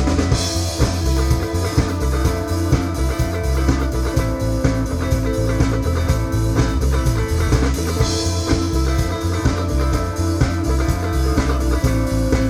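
Live rock band playing an instrumental passage: guitar over bass and a drum kit keeping a steady beat, with cymbal crashes about half a second and eight seconds in.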